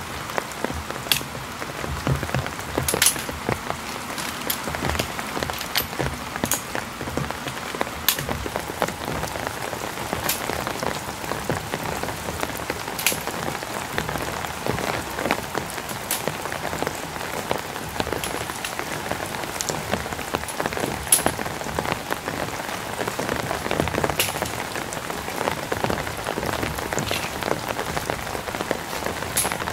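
Steady rain falling, with scattered sharp ticks every second or few.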